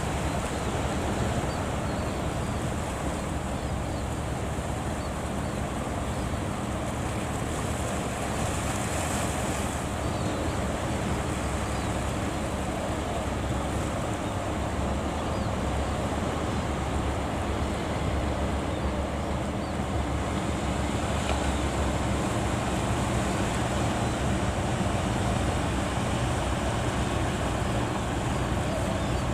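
Ocean surf breaking and washing at a river mouth, a steady roar of waves with wind buffeting the microphone.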